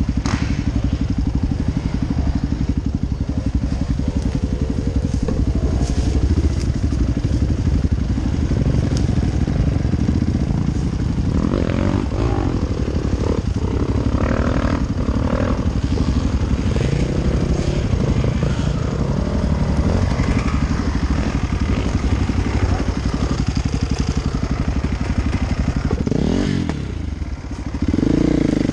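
Off-road dirt bike engine running steadily at low revs. Near the end it dips briefly, then revs up with a rising pitch.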